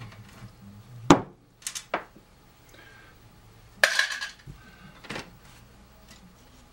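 Clicks and clinks of hand tools and metal parts: a sharp click about a second in, the loudest, then a few lighter clicks, and a clatter about four seconds in as the screwdriver is set down on the bench and the metal CD player case is handled.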